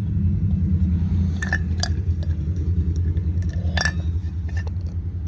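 Ice being crunched between the teeth: a few sharp crunches about a second and a half in, again near two seconds, and again near four seconds, over a steady low rumble.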